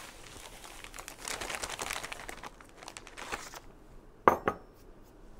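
Plastic gallon bag crinkling and rustling as a cup of white sugar is poured into it, the grains hissing into the bag. A little past four seconds in, two sharp knocks.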